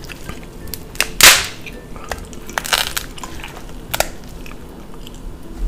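Alaskan king crab leg shell being cracked apart by hand: a loud sharp crack about a second in, then crunching and a few smaller snaps as the shell breaks.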